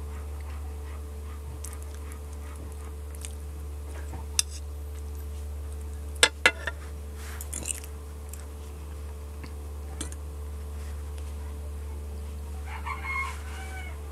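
A metal fork clinks against a ceramic noodle bowl a few times while noodles are being eaten, the two sharpest clinks coming close together about six seconds in, over a steady low hum. Near the end there is a short animal call.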